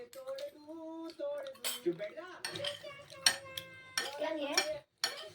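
Cutlery and dishes clinking and clattering in short knocks during eating, over faint voice audio from a TV playing in the room.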